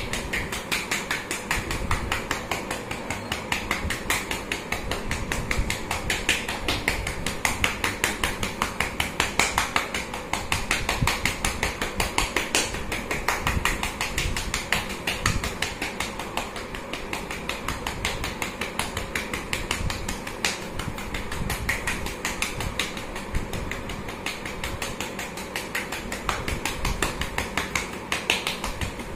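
Rapid, rhythmic patting of a cupped gloved hand on a patient's back, several strokes a second and unbroken: manual chest percussion, the airway-clearance technique used in chest physiotherapy after COVID-19.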